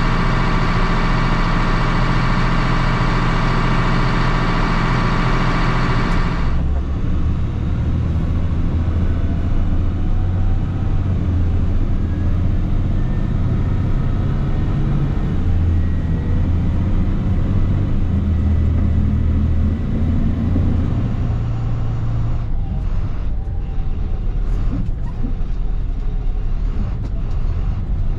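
Heavy diesel farm machinery running: a steady, whining engine drone for the first six seconds or so, then an abrupt change to a lower engine rumble that rises and falls, with a few clicks near the end.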